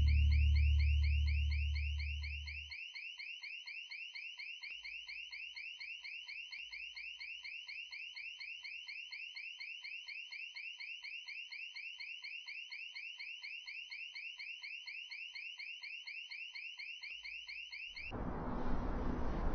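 Electronic alarm sounder going off: a high-pitched tone pulsing in fast rising chirps several times a second, which stops abruptly near the end. A low music ending fades out over the first couple of seconds.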